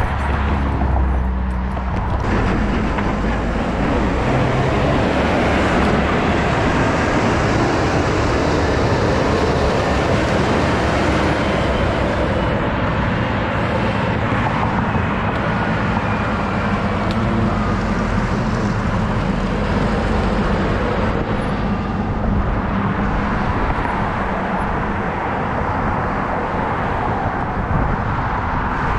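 Steady noise of a moving vehicle: an even, dense rush with a low hum underneath, unbroken throughout.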